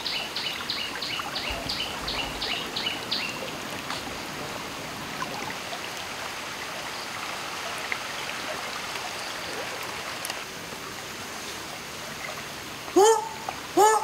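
River water flowing steadily, with a bird giving a quick series of high chirps, about four a second, over the first few seconds. Near the end a loud run of short, repeated pitched calls begins.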